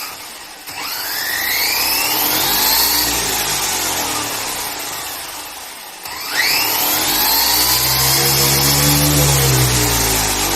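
JLB Cheetah RC car's brushless motor and drivetrain whining as the wheels spin up to full speed to test tire ballooning, twice: a rising whine that peaks about three seconds in and eases off, then after a break a second run-up about six seconds in that holds high and begins to drop near the end.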